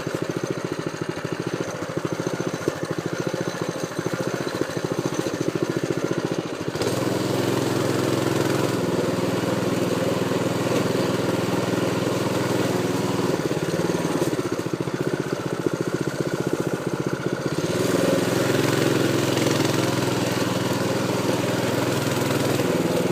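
A motor engine running steadily, its note shifting and growing fuller about seven seconds in.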